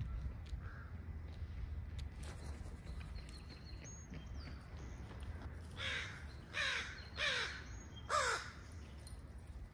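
A crow cawing four times in quick succession, starting about six seconds in, with each call harsh and falling in pitch. A steady low rumble runs underneath.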